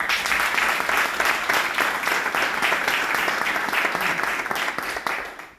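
Applause: many hands clapping together, starting all at once and dying away near the end.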